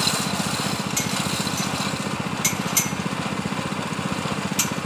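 Small engine of a machine-powered well-drilling rig running steadily, with a few sharp clicks over it.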